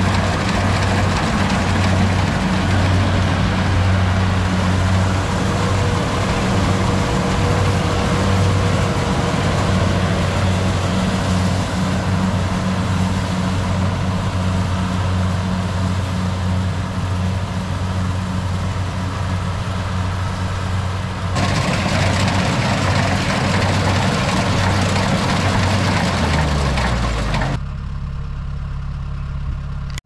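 Rice combine harvester's engine running steadily, a low hum under a wide hiss of machine noise. Near the end the engine pitch falls, then the machine noise drops off suddenly, leaving a quieter low engine hum.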